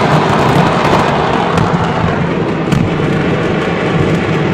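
A fireworks market's stockpile going off in a chain of explosions: dense, continuous crackling and popping of bursting fireworks, with sharper bangs about one and a half and nearly three seconds in.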